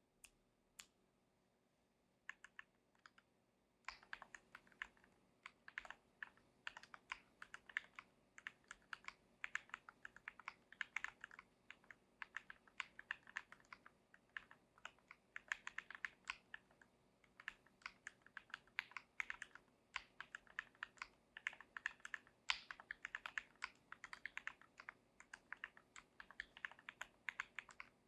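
Typing on an IDOBAO Abacus ID42 mechanical keyboard with Gateron Milky Yellow linear switches: a few separate keystrokes, then steady, fast typing from about four seconds in.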